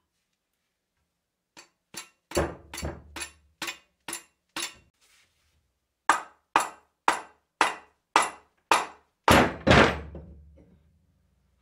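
Hammer blows on the rusty iron handwheel hub of an antique grape crusher, knocking the wheel off its shaft. Two runs of about eight blows at roughly two a second, with a short pause between. The last two blows are the loudest and ring on briefly.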